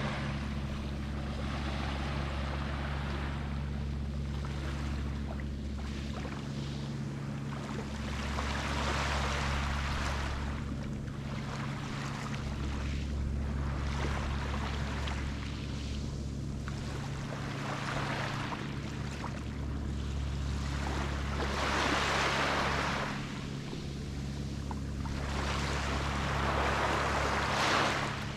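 Small sea waves washing onto a beach, the hiss of each wave swelling and fading every four to five seconds, over a steady low hum.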